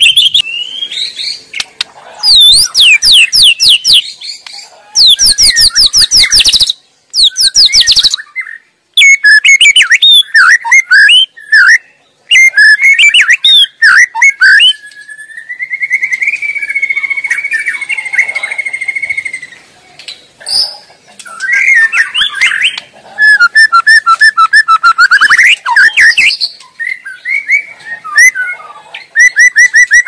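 White-rumped shama singing a long, varied song of clear whistles, fast runs of repeated sharp notes and trills, with a long steady trill about halfway through and a rapid repeated phrase near the end.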